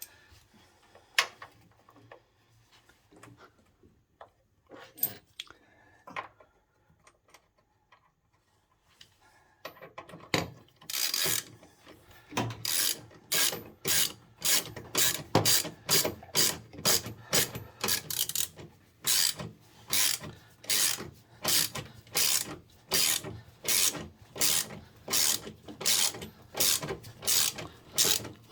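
Hand ratchet wrench tightening the washing-machine motor's mounting bolts: a few scattered knocks at first, then from about ten seconds in a steady run of ratchet strokes, about one and a half a second, each a burst of clicking.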